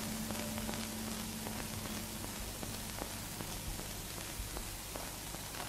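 Steady hiss and faint scattered crackle of an old film soundtrack. A faint held low note left over from the music fades out about two seconds in.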